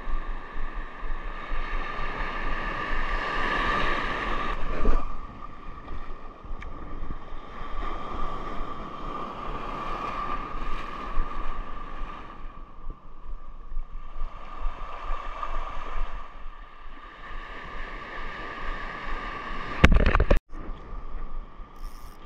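Surf washing over a rocky reef and wind buffeting the microphone, with a thin steady tone underneath. A short loud crackle and a brief dropout come near the end.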